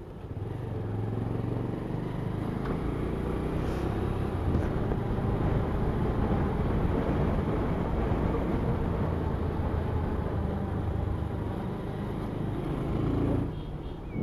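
Motorcycle engine running steadily while riding, with road and air noise; the engine eases off and the sound drops away near the end.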